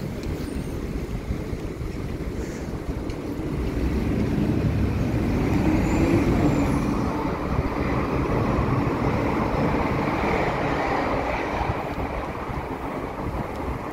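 City street traffic noise with a low rumble of wind on the microphone of a moving bicycle, growing louder through the middle.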